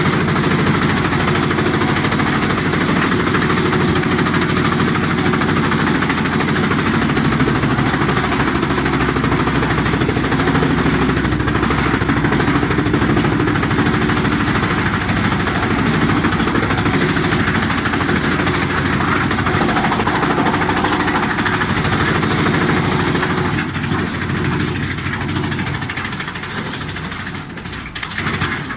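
Skorpion 650 EB stationary drum wood chipper running steadily, a loud even machine drone that eases off a little near the end.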